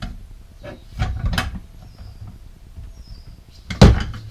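A hammer knocking a bike rack part into place: light knocks and handling noise about a second in, then one hard, sharp strike near the end.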